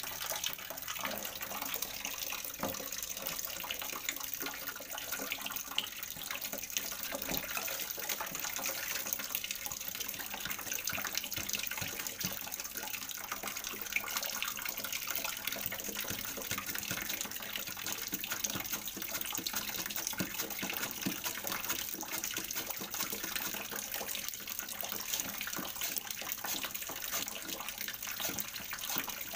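Water running steadily into a large tub already full of water, a continuous splashing.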